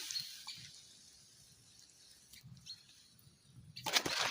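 Mostly quiet, then a brief burst of rustling and crackling in dry forest litter about four seconds in, like leaves and twigs being stepped on or pushed aside.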